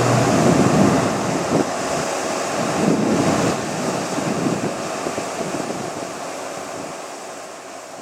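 Boeing P-8A Poseidon's jet engines roaring as the aircraft passes, fading steadily as it moves away, with a faint whine early on.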